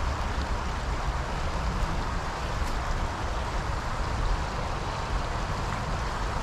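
Steady rushing of flowing stream water, with a low rumble underneath and a few faint ticks.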